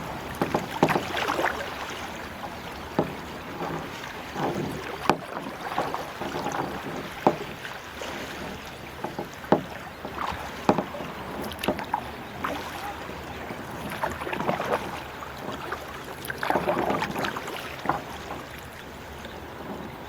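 Kayak being paddled: paddle blades splash through the water every few seconds, with scattered sharp knocks.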